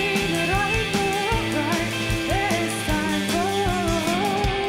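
Live rock band playing: a woman singing lead over electric guitar, bass guitar and a steady drum beat.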